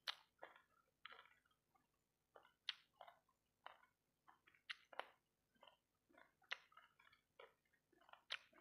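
Quiet, close-up chewing of sauce-coated fried rice balls, with irregular smacking and clicking mouth sounds about two a second.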